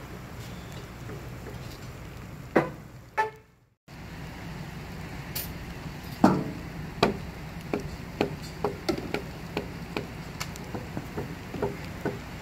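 Two sharp knocks, then a brief dropout. After that a hammer strikes a plywood sheet again and again, about two to three blows a second, the first the hardest and the rest lighter.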